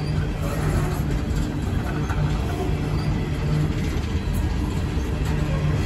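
Empty coal hopper cars of a freight train rolling past: a steady low rumble of steel wheels on rail, with a low hum that comes and goes and a few faint clicks.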